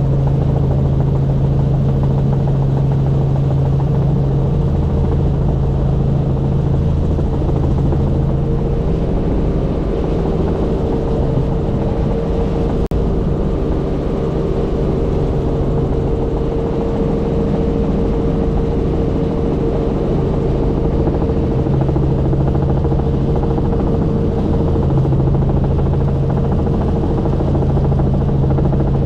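Helicopter in steady flight: a loud, constant drone of rotor and engine with steady low humming tones.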